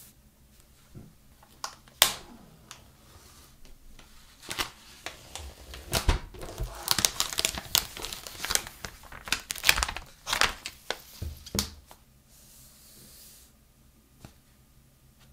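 Clear plastic shrink wrap crinkling and tearing as it is pulled off a phone box. There is one sharp crackle about two seconds in, then a dense run of crackles through the middle that dies down to quieter handling near the end.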